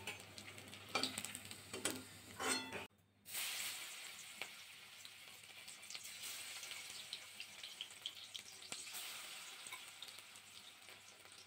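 Spinach-and-mung-dal fritters frying in hot oil in a kadai: a steady sizzle with small crackles as fresh fritters go into the oil. There are three short knocks in the first three seconds, and the sound breaks off briefly about three seconds in.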